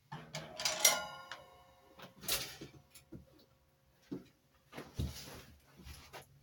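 A cymbal on a drum kit is struck once, about a second in, and rings briefly before being cut off. Scattered knocks and shuffles follow.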